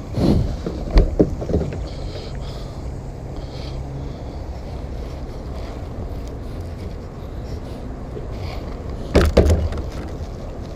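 Kayak hull knocking and shifting in shallow water as a person climbs out of it, with a few knocks at the start and a louder cluster of knocks and splashes near the end, over a steady low rumble of wind on the microphone.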